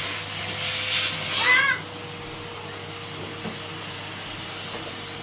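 Red Henry Hoover vacuum cleaner running. A loud rushing suction noise cuts off suddenly at about two seconds, leaving the machine's steady hum.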